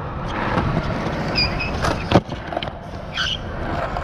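Skateboard wheels rolling over rough concrete, a steady rumble. About two seconds in comes a sharp clack of the board striking the ground.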